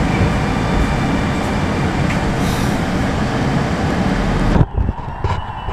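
An 81-765.2 metro train braking into a station: loud, steady running and brake noise inside the car. Near the end it cuts off suddenly with a sharp knock as the train comes to a stop.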